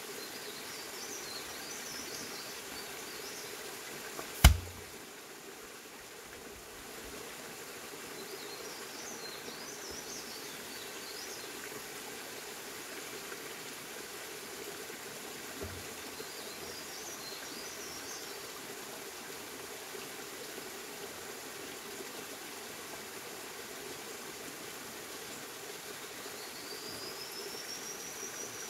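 Birds chirping and trilling now and then over a steady outdoor hiss, with a single whistled call that rises and falls near the end. A sharp, loud knock about four and a half seconds in, and a fainter one later.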